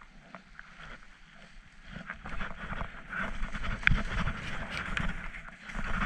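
Skis hissing and scraping through soft, chopped-up snow on a downhill run, with scattered clicks and wind rumbling on the microphone. It grows louder about two seconds in as the skier picks up speed.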